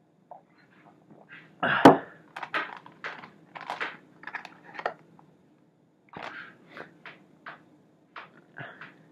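A drinking glass is set down on a table with a loud thunk about two seconds in. A run of short scuffs and clicks follows as a chicken wing is handled.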